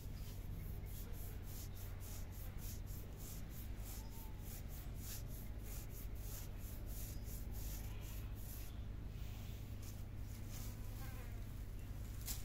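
Insect calling in fast, regular high-pitched pulses, about three or four a second, fading briefly about nine seconds in and then resuming, over a low steady hum.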